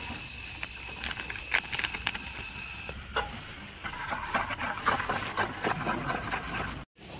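A metal spoon stirring inside a stainless steel mug, a quick run of clinks and scrapes starting about four seconds in, over the steady hiss of a portable gas stove burner. A few sharp clicks come in the first two seconds.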